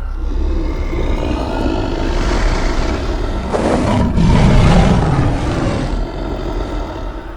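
An animal roar that swells, is loudest about four to five seconds in, then fades.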